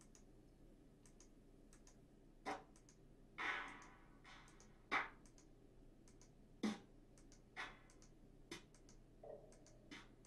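Clap and snare drum samples previewed one after another in Reason's sample browser: about eight short, sharp hits, each with a brief decay, starting a couple of seconds in, between faint mouse clicks.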